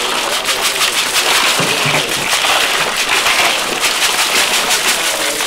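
Crushed ice poured from a plastic basket into a cooler onto plastic-bagged fish: a dense, continuous crackling clatter of ice pieces.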